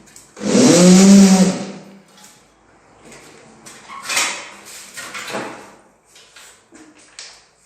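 Cordless screwdriver whirring for about a second, its pitch rising and falling, as it drives a self-tapping screw into a plastic window-trim strip. Softer knocks and handling noise follow.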